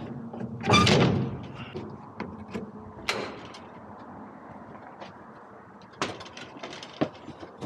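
Clunks and clatter of a semi-truck tractor being uncoupled from its trailer. There is a loud rush of noise about a second in, a second one about three seconds in, and a few sharp knocks near the end.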